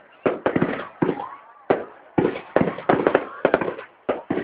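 Fireworks going off in a rapid, irregular series of sharp bangs, well over a dozen, with a brief lull a little after a second in.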